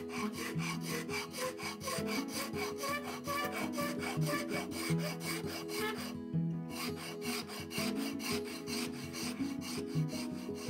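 Shinto saw rasp filing a red elm axe handle in quick, regular strokes, shaping the wood down to fit the eye of the axe head. The strokes break off briefly about six seconds in, then carry on.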